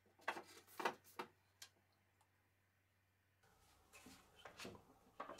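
Near silence broken by a few faint light clicks and taps in the first second and a half, then faint soft knocks near the end as a wooden rod is handled in the hole of its wooden base.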